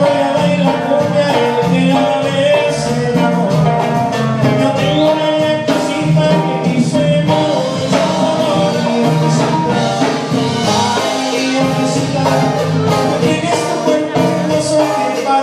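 A live band playing Latin dance music, with a singer over the instruments.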